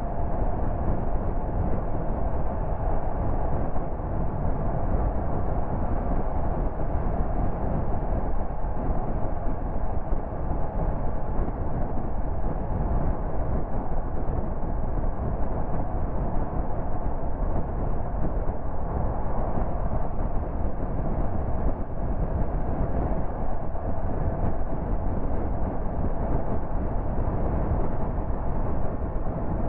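Steady road noise of a car cruising at motorway speed: tyre roar and wind, even throughout with no distinct events.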